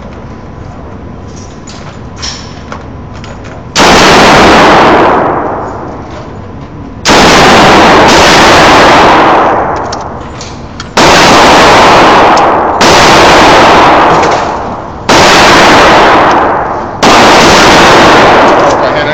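Six rifle shots at an indoor shooting range, coming at irregular intervals of about two to four seconds after a few seconds of steady background noise. Each shot is a sudden, very loud crack that overloads the microphone, followed by a long echo off the concrete range.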